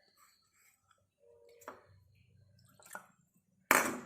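Small kitchen water sounds, with faint drips and little splashes of water being spooned or squeezed out of the crushed ginger. Near the end comes one louder, short, sharp sound.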